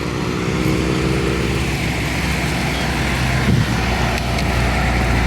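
Road traffic passing through a signalled intersection: car engines running and tyre noise in a steady low rumble, with one engine's tone standing out during the first two seconds.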